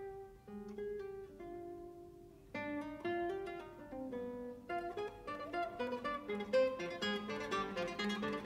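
Background music on plucked guitar: a few slow, held notes, then a busier picked pattern from about two and a half seconds in.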